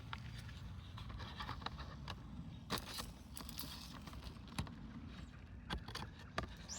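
Irregular light clicks and taps of small objects being handled, over a faint steady low rumble.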